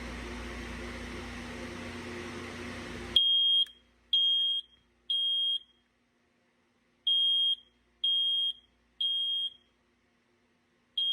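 BRK 2002RAC hardwired photoelectric smoke alarm sounding on test. After about three seconds of steady hiss, its high-pitched horn beeps in the temporal-three evacuation pattern: three half-second beeps, a pause, three more, and a fourth starting near the end.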